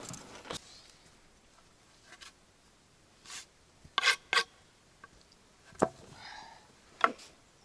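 About six short scrapes, spread unevenly over a quiet background, two of them close together about four seconds in.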